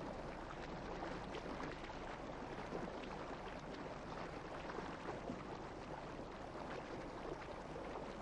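Faint sea water lapping and washing in a steady low hiss.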